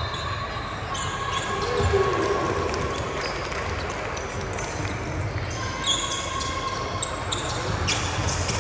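Basketball dribbling and bouncing on a gym floor during a youth game, with repeated low thumps over a steady din of the hall.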